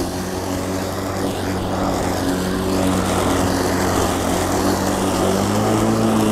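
Battery-powered push lawn mower running steadily while cutting tall grass, a steady motor hum whose pitch rises slightly near the end.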